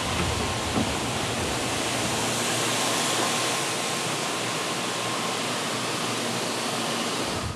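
Water jets of an automatic train-washing machine spraying a slow-moving Shinkansen train: a steady hiss of spray. A low rumble underneath drops away about two and a half seconds in.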